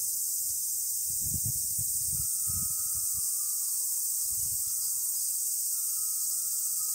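Steady high-pitched chorus of cicadas, with faint ringing from glass wind chimes stirred by the breeze now and then and a few low gusts of wind on the microphone.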